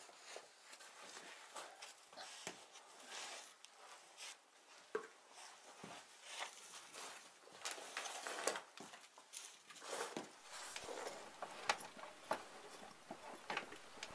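Irregular scuffs, scrapes and knocks of people crawling on hands and knees over rock, growing louder and more frequent in the second half.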